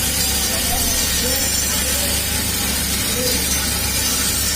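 A 7 kg coffee bean roasting machine running: a steady loud hiss over a constant low hum.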